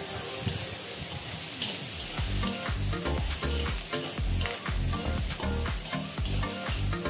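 Chopped cabbage and bell pepper sizzling in hot oil in a wok while a plastic spatula stirs and scrapes them around the pan. A low, regular bass beat of background music comes in about two seconds in.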